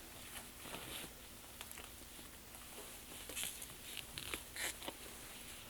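Faint rustling and scattered light clicks of monitor packaging and plastic wrap being handled, with a few brief swishes from about three seconds in.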